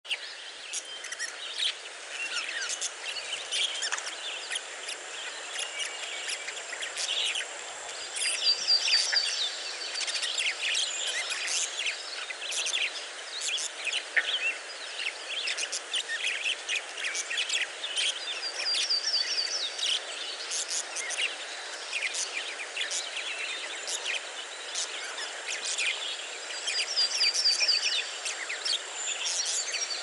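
A flock of budgerigars chattering: a steady stream of short chirps and warbles, with a brief, high, rattling trill three times, loudest near the end. A steady low hiss runs beneath.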